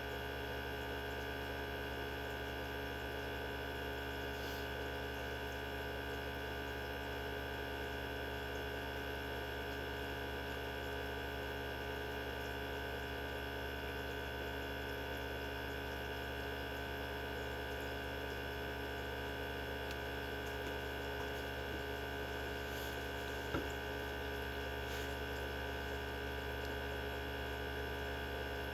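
Mini benchtop centrifuge running at speed: a steady motor hum made of several held tones, with one small click about three quarters of the way through.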